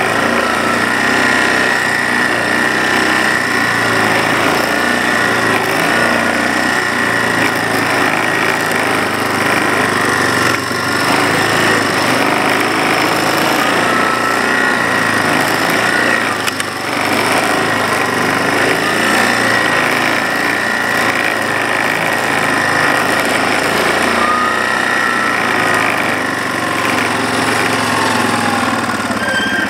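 Yamaha ATV engine running steadily under way at a constant pace, with a steady high whine over the engine noise.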